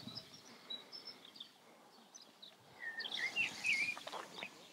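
Faint small-bird chirping and song, with a quick run of twittering notes about three seconds in, over a quiet outdoor background hiss.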